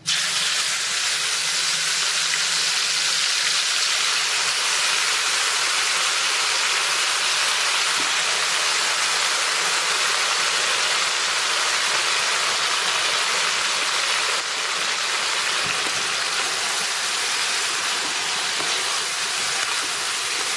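Yogurt-marinated mutton sizzling loudly in hot oil in a kadai, starting abruptly as the wet meat goes into the oil and holding as a steady hiss while it fries on high flame. The sizzle eases slightly about two-thirds of the way through.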